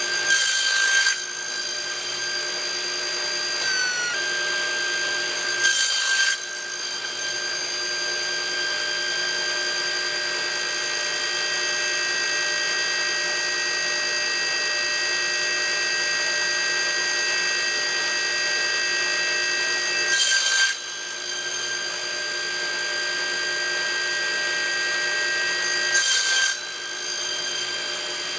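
Table saw running with a steady motor whine, cutting through a stack of small wood pieces four times. Each cut is a brief, louder rasp lasting under a second.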